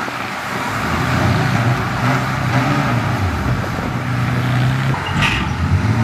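Heavy-equipment diesel engine running steadily, with a brief hiss about five seconds in.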